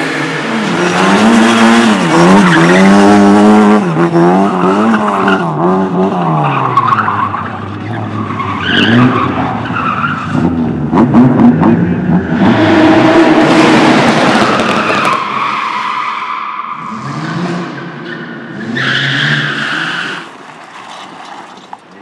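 Small saloon cars driven hard around a tight course: engines revving up and down again and again, with tyres squealing and skidding as the cars slide. The revving is loudest in the first few seconds and again about halfway through, and dies away near the end.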